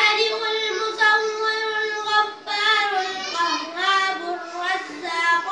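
A boy singing solo in a high child's voice: a long held note, then a short breath about two and a half seconds in and a new phrase that winds up and down.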